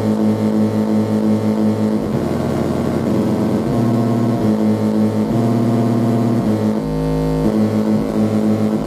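Buzzy electronic tone from a laboratory signal generator, pulsing about twice a second. The pattern shifts a few times, with a short steady low tone about seven seconds in.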